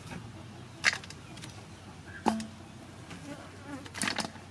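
Chopped herbs and shallot slices dropping and tapping into a large metal basin: a light click about a second in, a knock a little past two seconds that leaves a short metallic ring, and a small clatter near the end. An insect buzzes faintly in the background.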